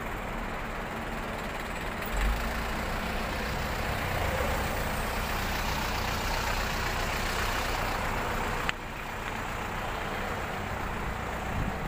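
Street traffic: vehicle engines running, with a steady low rumble under a broad rushing noise that builds and then drops off suddenly about three-quarters of the way through.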